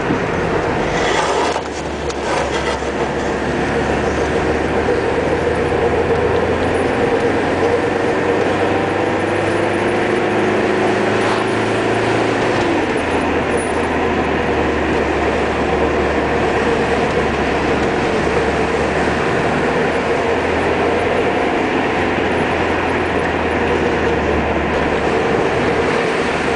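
Car engine and tyre noise heard from inside the cabin while driving, loud and steady. An engine note rises slowly and drops away about halfway through. There are a few short knocks near the start.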